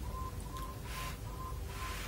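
A person chewing a mouthful of rice and omelette eaten by hand, with two short smacking mouth noises, about a second in and near the end. A faint tone pulsing evenly about five times a second runs underneath.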